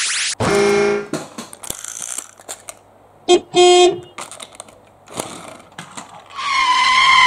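Toy train horn toots: one short toot right at the start, scattered clicks, then a quick pair of toots about three and a half seconds in. Near the end a wavering high whistle-like tone begins.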